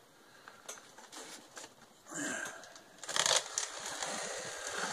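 Cardboard shipping box being handled: a few light taps and scuffs, then from about three seconds in hands rubbing and scraping steadily on the carton.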